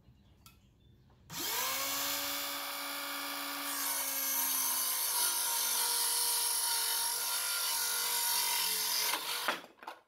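Bauer 20-volt cordless circular saw with a 24-tooth Diablo framing blade. About a second in it spins up with a rising whine, then runs for about eight seconds, its pitch sagging slightly under load as it cuts through wood. Near the end it winds down and stops.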